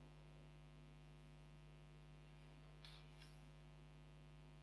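Near silence: a faint steady electrical hum, with a couple of faint soft clicks about three seconds in.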